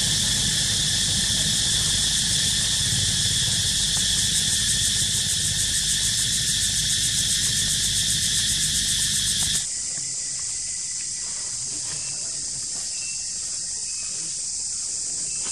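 Chorus of insects in the forest, a loud, high, rapidly pulsing drone with a low rumble under it. About ten seconds in it cuts to a quieter, steadier high insect hiss.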